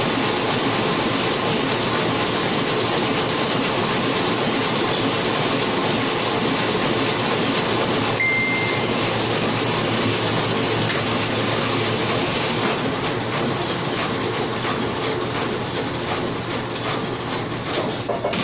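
Heidelberg single-colour offset printing press running, a dense steady mechanical clatter of its cylinders and sheet transport. A short beep sounds about eight seconds in. The sound thins and grows quieter over the last few seconds, then drops sharply at the very end.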